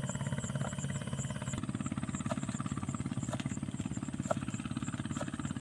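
A small engine running steadily with a rapid, even chugging, with a few faint clicks over it.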